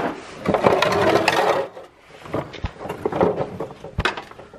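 A ratchet wrench clicking against bolts under a car, with handling and scraping noise, then two sharp knocks about two and a half and four seconds in.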